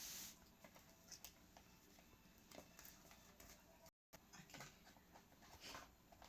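Near silence: faint room tone with a few soft clicks and taps. The sound cuts out completely for a moment about four seconds in.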